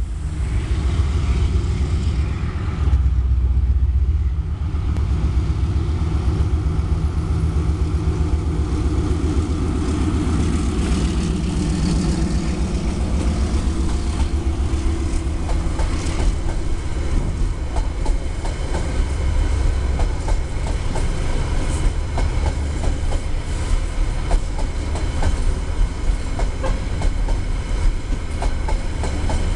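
CRRC Ziyang CDD6A1 diesel-electric locomotive approaching and passing with its engine running, followed by a long train of container flatcars rolling by. From about halfway on, their wheels click steadily over the rail joints in a clickety-clack.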